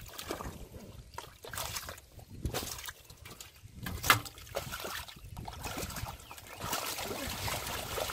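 Irregular splashing and sloshing in shallow muddy water as hands grab at catfish, with one sharp smack about four seconds in.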